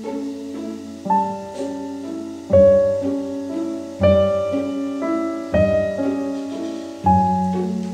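Background piano music: soft chords or notes struck about every second and a half, each fading away before the next.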